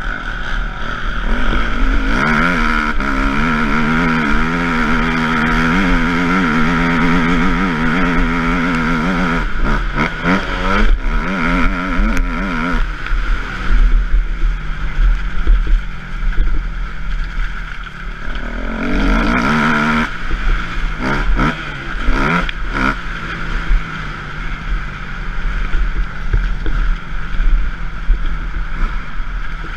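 Motocross bike engine revving up and down as it is ridden around a dirt track, heard from an on-bike camera. The engine note rises and falls repeatedly and is strongest for several seconds near the start and again about two-thirds of the way through, over a constant low rumble.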